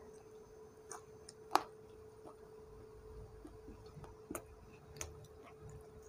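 A person chewing food, heard as a few scattered sharp mouth clicks and smacks; the loudest comes about one and a half seconds in. A faint steady hum runs underneath.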